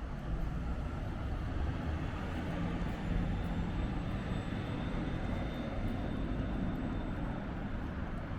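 Steady low engine rumble with a faint high whine, heard against general city ambience.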